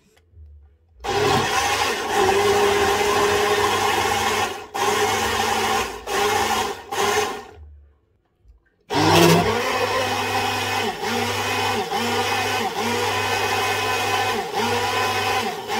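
Personal single-serve blender motor blending a thick smoothie of frozen fruit, greens and yogurt. It starts about a second in, runs for a few seconds, pulses briefly, stops for about a second, then runs again with short dips in speed about once a second.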